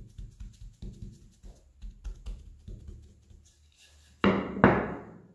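Wooden rolling pin tapping down on a slab of laminated croissant dough to flatten the enclosed margarine, soft thumps about three or four a second. About four seconds in come two louder knocks.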